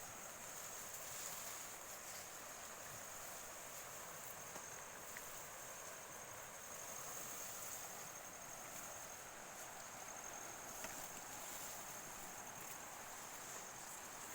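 Faint outdoor ambience: a steady high-pitched insect drone over a low, even hiss of wind or rustling grass.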